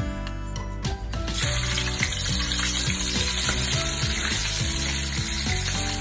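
Chicken pieces frying in hot oil in a steel wok, a steady sizzle that sets in about a second in, over background music.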